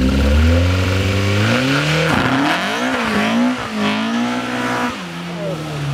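Seven-style hillclimb sports car launching from the start line and accelerating hard up the hill. The engine's pitch rises, drops briefly at each gear change about two and three and a half seconds in, and steps down again near the end as the car pulls away.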